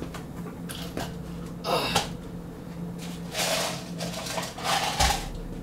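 Someone rummaging nearby to fetch some bullets: a few short rustling and scuffing noises over a steady low hum.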